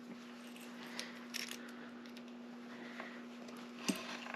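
A few light metallic clicks and taps as a lock cylinder is handled during rekeying, with its retainer and key just removed, over a steady low hum.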